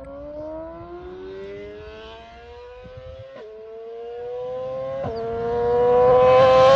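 BMW S1000RR sport bike's inline-four engine accelerating hard, its pitch climbing steadily with two quick upshifts, about halfway and about three-quarters of the way through, and growing much louder toward the end.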